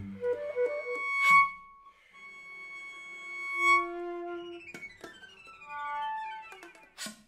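Contemporary chamber music for voice, flute and cello: high held tones with a few sharp, noisy attacks, then a run of notes stepping downward near the end.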